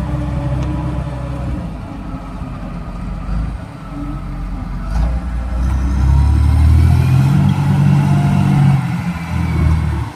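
Engine of a construction machine running steadily, growing louder and heavier from about six seconds in and then dropping away near the end.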